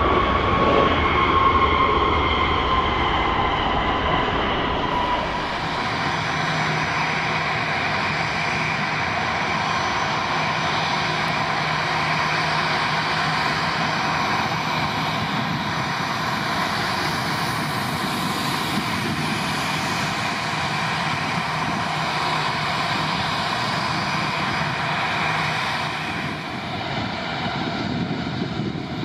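Jet airliner's engines running loud as it passes, with a whine that falls in pitch over the first few seconds, then a steady rush of engine noise that eases slightly near the end.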